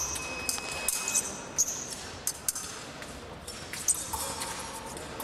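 Fencing in progress: épée blades clashing and scraping in short metallic pings, mixed with the thuds of fencers' feet stamping on the piste. The strikes come irregularly, several times a second at the busiest.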